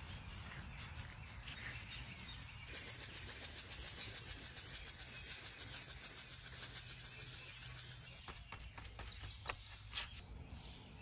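Quiet outdoor ambience: faint bird chirps over a steady low rumble, with a few sharp clicks near the end.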